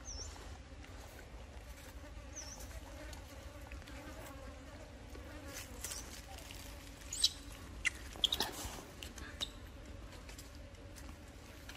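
A fly buzzing steadily close by, with a few sharp crackles of dry leaves in the middle as a young macaque moves on the leaf litter. Two short high chirps in the first few seconds.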